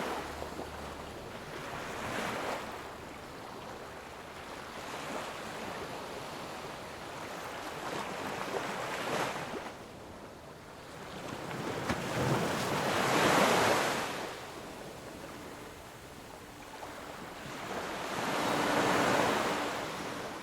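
Ocean waves breaking and washing on a shore in slow swells, rising and falling every few seconds; the two biggest come about two-thirds of the way through and near the end.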